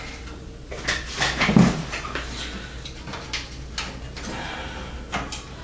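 Thin sheet-metal I/O shield being pressed into a computer case's rear cutout: a run of irregular clicks and knocks as its edges snap into place.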